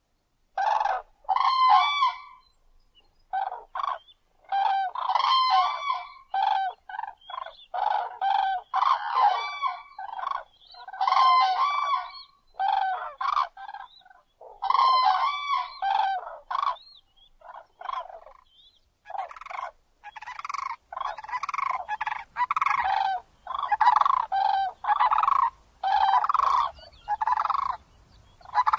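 Grey crowned crane calling: a long series of short honking calls in bouts separated by brief pauses, coming closer together and more continuously in the second half.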